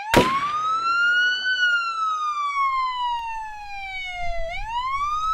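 A wailing siren, its pitch rising for about a second and a half, falling slowly for about three seconds, then rising again near the end. It starts with a sharp hit.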